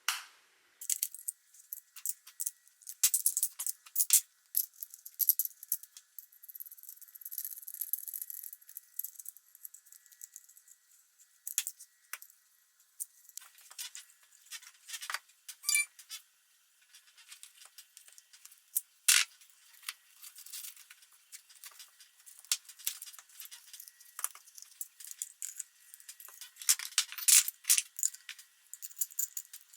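Metal tools and small metal parts clinking, tapping and rattling in irregular bursts, as in hands-on work on a moped's parts, with busier clusters of clatter now and then.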